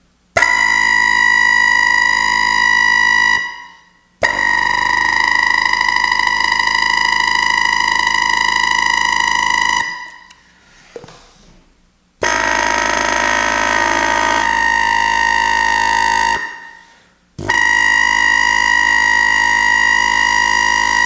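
Four long, steady, loud horn blasts with short gaps between them; each one starts abruptly and dies away after a few seconds.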